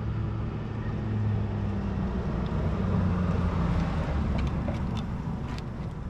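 A vehicle engine running with a steady low hum, easing off after about four seconds, with a few faint clicks near the end.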